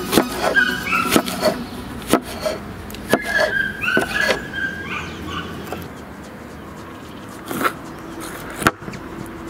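Kitchen knife chopping fresh dill on a hard countertop: sharp taps, several a second for the first few seconds, then sparser. Short high chirp-like animal calls sound over the chopping in the first half.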